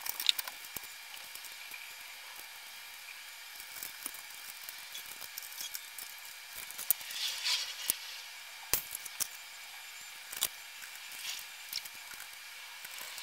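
Faint hand-handling of a ceiling fan's metal and glass light-kit parts being fitted: scattered light clicks and knocks, with a short rustling clatter about seven seconds in.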